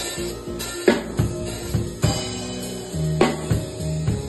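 Live church band music: a drum kit played with sticks, with sharp hits about a second apart over held bass notes that shift lower about three seconds in.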